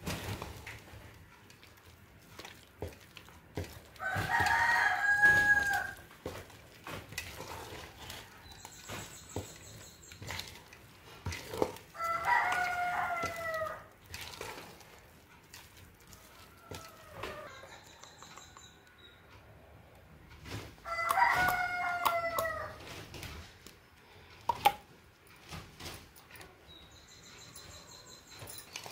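A rooster crowing three times, each crow about two seconds long, with roughly eight seconds between them.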